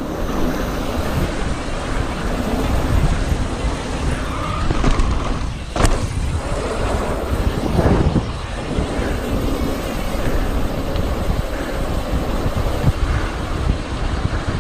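Wind buffeting the camera microphone and the tyres of a mountain bike rolling fast downhill on a lane, with a sharp knock about six seconds in.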